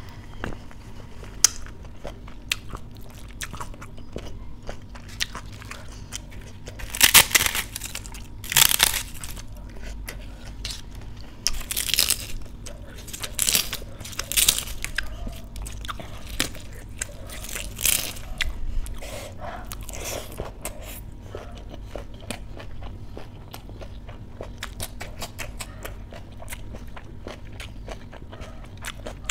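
Close-miked eating: crisp flatbread crunching in several loud spells through the middle, then quieter small crackles and soft sounds of fingers working rice and dal.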